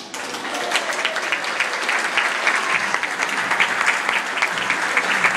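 Audience applause, starting all at once and going on steadily: many hands clapping together.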